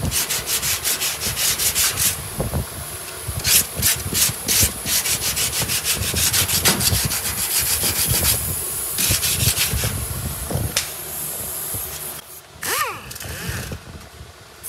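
Hand sanding of body filler on a steel body panel with a sanding block wrapped in P120 sandpaper: rapid back-and-forth scraping strokes, several a second. The strokes stop about twelve seconds in, and a brief wavering whine follows.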